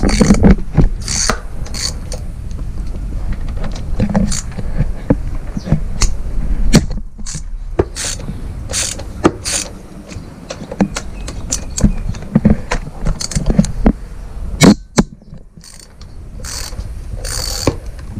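Hand ratchet and metal tools clicking and clinking in irregular bursts as bolts on a motorcycle's front fork are worked loose.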